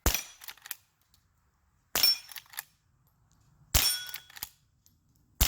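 Four quiet-load shots from a Henry H001 .22 lever-action rifle firing CCI Quiet rounds, evenly paced about two seconds apart, each followed by the clacks of the lever being worked. A steel target rings faintly after the later shots.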